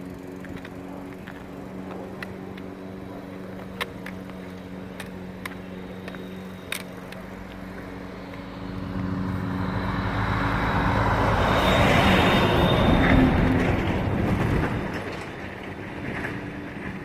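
A vehicle passes on the road, swelling from about nine seconds in, loudest around twelve to thirteen seconds, then fading. Beneath it a steady small-engine drone runs throughout, with a few sharp taps in the first half.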